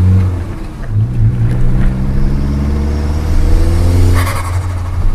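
Golf GTI Mk4's 1.8-litre 20-valve turbo four-cylinder accelerating hard, its pitch rising with a climbing turbo whistle; just after four seconds in, the throttle comes off and a short chattering burst of turbo flutter follows.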